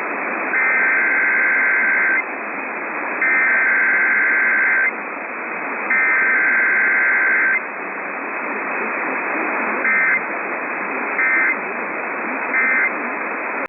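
Emergency Alert System SAME data bursts received over a staticky radio: three loud two-tone digital header bursts of about a second and a half each, then, after a couple of seconds of static, three short end-of-message bursts.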